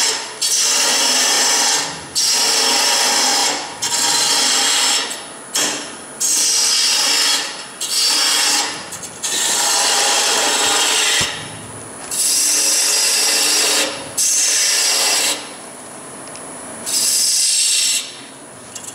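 Woodturning tool cutting into wood spinning on a lathe in repeated passes: about ten strokes, each a second or two long, with short pauses between them.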